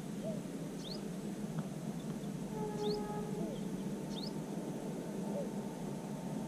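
Open-air ambience with a steady background hiss and birds calling: quick high rising chirps every second or two, and one short low hooting note about three seconds in.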